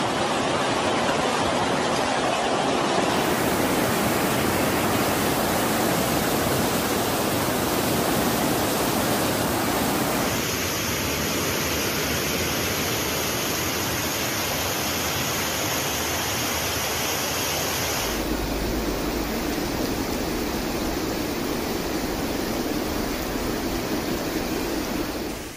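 Fast, turbulent floodwater rushing through streets and a swollen channel, a steady loud wash of water noise with no distinct events. The sound shifts abruptly in tone about three, ten and eighteen seconds in.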